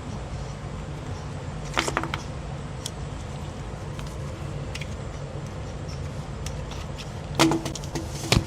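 Steady low hum with a few sharp metallic clicks and clacks, a cluster about two seconds in and a louder pair near the end: an AR9 carbine being handled as a jam is cleared.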